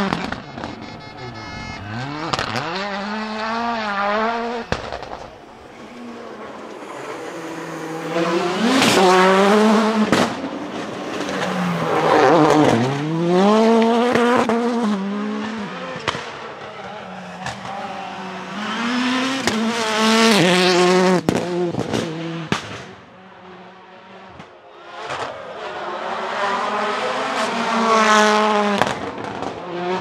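Audi S1 RX quattro rallycross cars with 600 hp turbocharged four-cylinder engines accelerating hard past in several runs, engines revving up and dropping back through gear changes. A few sharp bangs from the anti-lag system and some tyre squeal.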